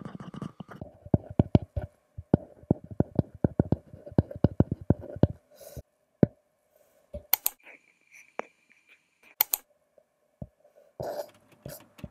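Apple Pencil tip tapping and clicking on an iPad screen during handwriting, a quick run of clicks for about five seconds. Then sparser taps and two brief scratchy strokes.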